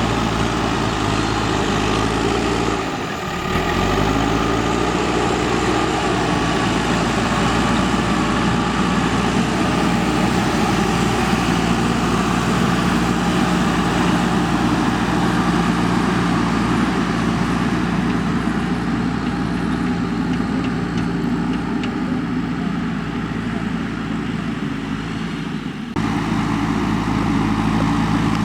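JCB 3DX backhoe loader's diesel engine running steadily as the machine works, its revs dipping briefly and climbing back about three seconds in. The sound changes abruptly near the end.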